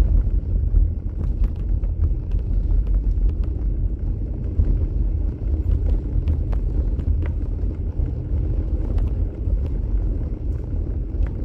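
Steady low rumble of a car being driven, heard from inside the cabin: engine and tyre noise on a snowy road, with a few faint scattered ticks.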